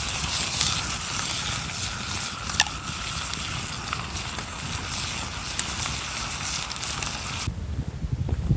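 Open wood fire burning around a pan of steak: a steady hiss with a few sharp crackles and pops. About a second before the end it cuts off suddenly, leaving irregular low thumps.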